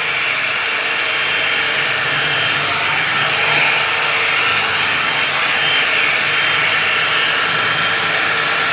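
Tymo hot-air blow-dry brush running steadily while it is drawn through a section of hair: an even rush of blown air with a faint steady hum underneath.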